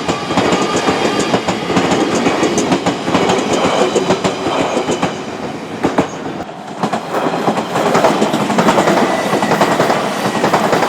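Train passing close by, wheels clacking over the rail joints. The sound dips briefly about six seconds in, then picks up again.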